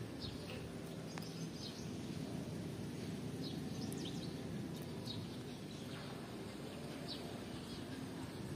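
Outdoor ambience: small birds give short, high chirps every second or two over a steady low rumble.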